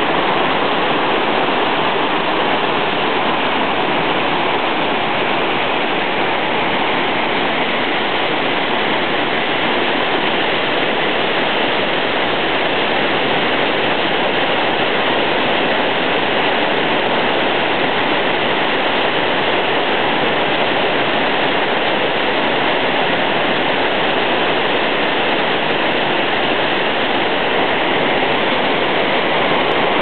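La Fortuna Waterfall and the boulder-strewn river below it, rushing steadily: an even, unbroken wash of falling and flowing water.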